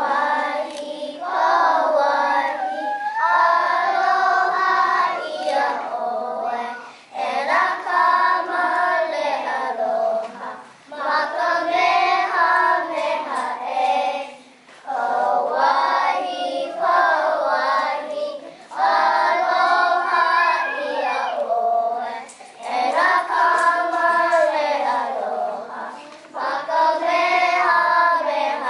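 A group of preschool children singing together without accompaniment, in phrases of about four seconds with short breaks between them.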